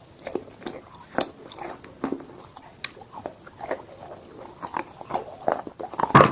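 Chalk being chewed: irregular crunches and crackles, several a second, with the loudest crunch near the end.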